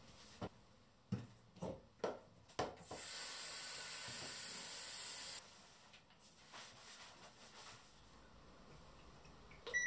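A handheld shower head spraying water, a steady hiss for about two and a half seconds that stops suddenly, after a few soft knocks. A short beep comes near the end.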